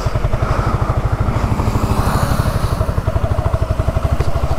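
Yamaha R15 V3's single-cylinder engine running steadily with an even exhaust beat, freshly repaired and sounding smooth.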